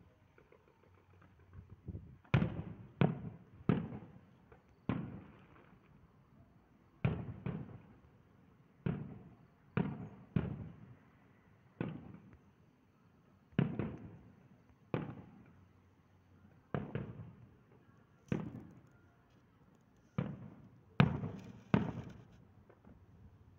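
Distant aerial fireworks shells bursting: a string of about sixteen booms, irregularly spaced one every second or two, each trailing off in a rolling echo.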